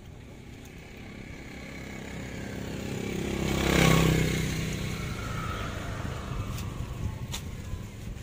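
A motor vehicle passing by: its engine grows louder, peaks about four seconds in, then fades. A couple of sharp clicks follow near the end.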